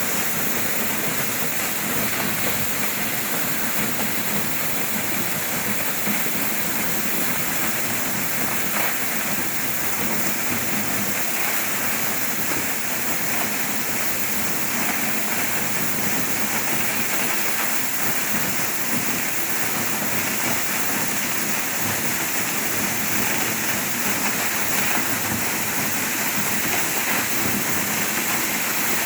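Waterfall: a steady rush of falling water, constant in level.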